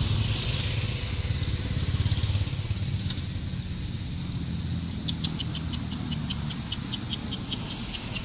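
Small motor scooter engine idling with a steady low rumble. From about five seconds in, a string of short high-pitched chirps repeats at roughly three a second.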